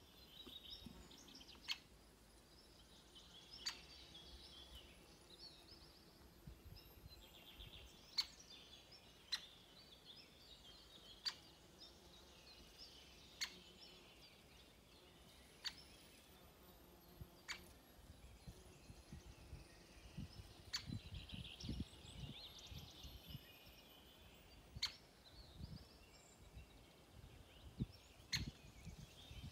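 Faint, sharp single clicks from a woodpecker, one every couple of seconds at an uneven pace, over soft chirping of songbirds in the background.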